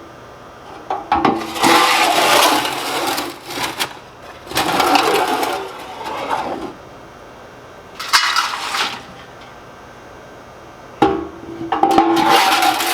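Wood stove grates worked back and forth with a wrench in four bursts, metal scraping and rattling as ash is shaken down into the ash pan.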